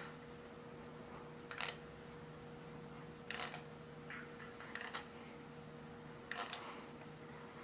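Bark Nautilus V2 balisong (butterfly knife) being flipped: a handful of short, light clicks and clacks of the handles and blade, spaced a second or so apart. The pivots' bushings have been sanded down, so the knife flips without play or blade slap.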